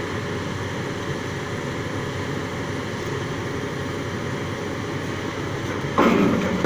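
Sany piling rig working, its heavy machinery running with a steady drone. Near the end a clearly louder sound cuts in.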